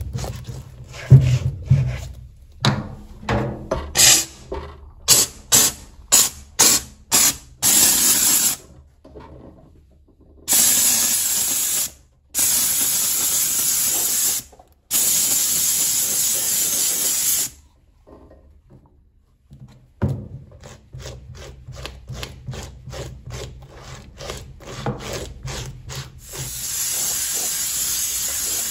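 A small brush scrubbing black suede in quick strokes, then three hissing bursts of steam from a handheld steamer, each two to three seconds long. After a pause the brushing returns, and near the end a steady steam hiss starts.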